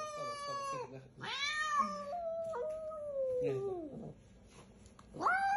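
Angry cat giving long, drawn-out growling yowls: one trailing off just under a second in, a second sliding down in pitch over about three seconds, and a third starting near the end. This is a defensive warning at a hand reaching toward its cage.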